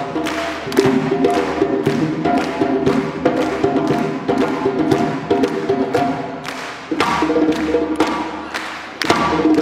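Two Georgian doli drums played by hand in a fast rhythmic duet: sharp, dense strokes with the drumheads ringing.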